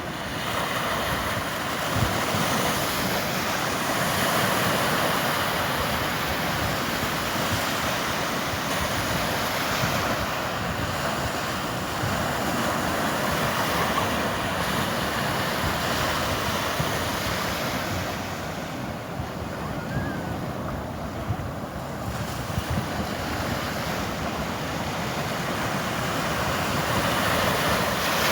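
Sea waves washing onto the shore: a steady rushing surf that eases for a few seconds about two-thirds of the way through, with some wind on the microphone.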